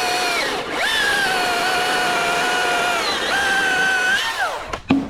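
Milwaukee battery-powered top-handle chainsaw running at full speed with a steady electric whine. It sags and recovers twice, then winds down near the end, and a sharp click follows.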